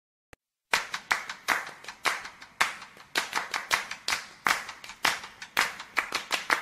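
Hand clapping in a fast, uneven rhythm, starting just under a second in, each clap echoing in a large gymnasium.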